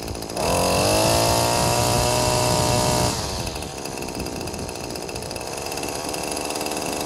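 Maruyama BT230L string trimmer's small two-stroke engine idling, then revved up about half a second in, held at high speed for a little over two seconds, and let back down to idle.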